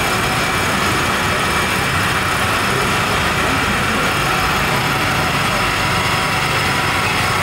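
Fire truck's engine running steadily at pump speed while it drives the roof-mounted water cannon, a constant loud drone with no let-up.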